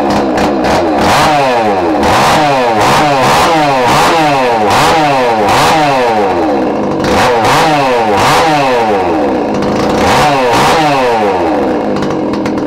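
Stihl 026 two-stroke chainsaw engine, fitted with an unported aftermarket big-bore cylinder and run without clutch or covers, revving up and dropping back over and over, a little more than once a second. It is loud throughout.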